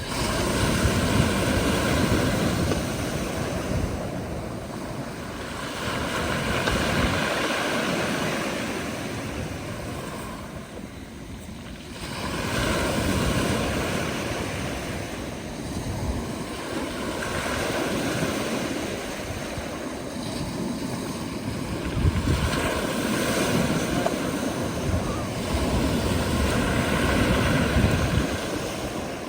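Black Sea surf breaking on the beach, the wash swelling and falling away every few seconds.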